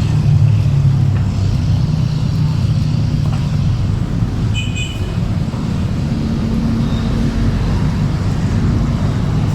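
Motor vehicle engine running steadily amid road traffic noise, with a short high double beep about halfway through.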